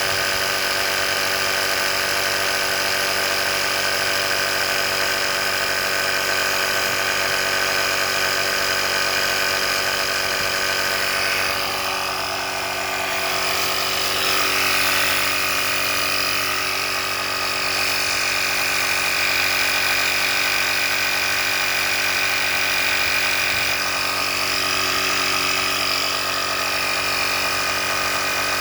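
EverStart portable jump-starter's built-in air compressor running continuously with a steady mechanical whir and hum, shifting slightly in tone about twelve seconds in.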